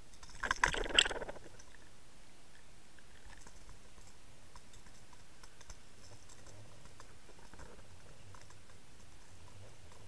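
Muffled underwater sound picked up by a towed Water Wolf underwater camera: a faint steady hiss, with a short clatter of clicks and knocks about half a second in, then scattered faint ticks.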